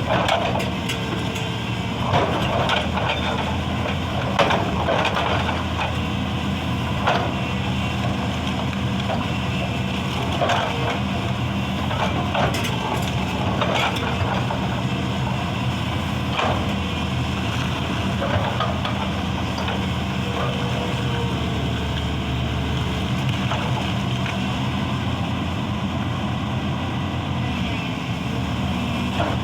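Excavator's diesel engine running steadily, with scattered knocks and clanks of stone every second or few, not the fast steady hammering of a rock breaker.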